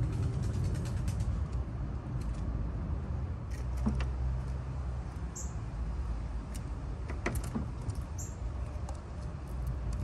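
Steady low rumble of distant road traffic, with scattered sharp taps and clicks from an eastern gray squirrel's claws as it comes down the fence onto the wooden deck. Two short high chirps sound, one about midway and one near the end.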